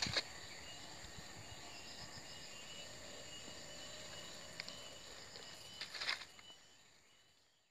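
Insects buzzing steadily in several high thin tones. Plastic mulch sheeting rustles briefly as it is handled, at the start and again about six seconds in, and the sound fades out near the end.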